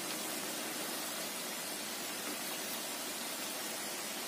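Tempeh sticks deep-frying in hot oil, a steady even sizzle as they are par-fried to half-cooked.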